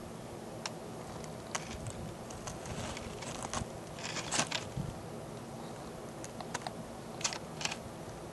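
Irregular small dry clicks and ticks, a few at a time in short clusters, over a steady low background hiss.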